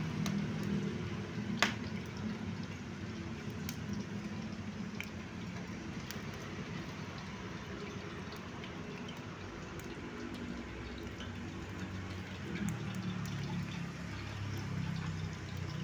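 Small twig-and-paper fire crackling with scattered sharp pops, one louder pop about a second and a half in, under a pan of cooking oil heating toward a boil, over a steady low rumble of road traffic.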